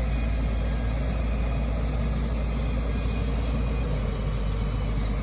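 Diesel engine of a Volvo EW205 wheeled excavator running steadily with a deep, even rumble.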